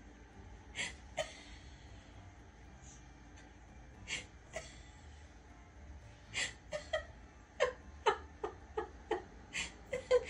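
A cat handling a blanket on a hard floor: a series of short clicks and taps, a few at first, then about two a second from about halfway through.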